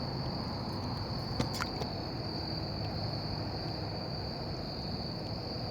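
Steady, high-pitched chorus of insects, with a couple of short clicks about a second and a half in.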